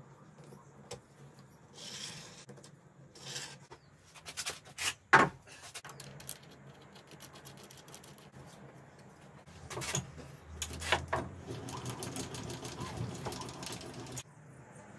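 Metal clinks and knocks of a machine vise and its hold-down bolts being fitted and tightened on a mini milling machine's steel table, with a run of quick clicking near the end.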